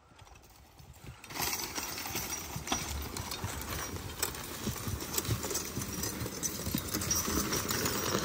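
Team of draft mules skidding a log: hoofbeats on dirt, clinking trace chains and the log scraping along the ground. It starts faint and becomes steady about a second in as the team pulls away.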